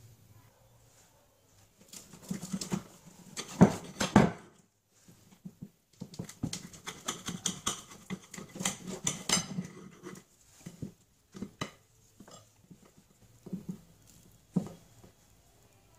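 Table knife cutting a crisp-crusted pizza on a plate: irregular crunches, clicks and scrapes of the blade against the crust and the plate, coming in bunches, busiest in the middle, with a few last clicks near the end.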